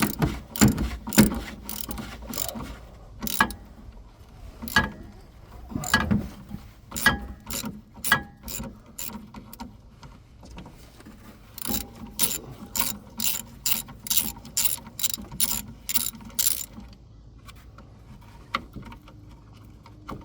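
A 3/8-inch-drive socket ratchet on an extension clicking as it is swung back and forth, turning out a shock-absorber mounting bolt. The clicks come in uneven groups, then settle into a steady run of about two strokes a second before stopping near the end.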